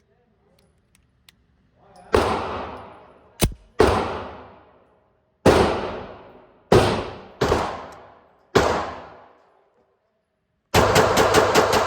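Gunshots: seven single shots at uneven intervals, each ringing on and fading over about a second, then near the end a fast string of about a dozen shots in a second, like a full-auto burst.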